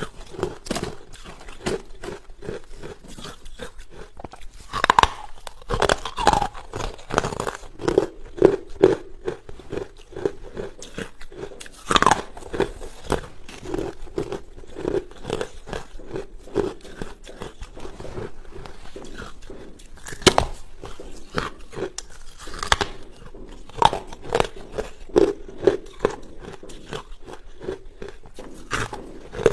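Close-up crunching and chewing of hard carbonated ice: a dense run of sharp cracks, with a few louder bites breaking through, about five, twelve and twenty seconds in.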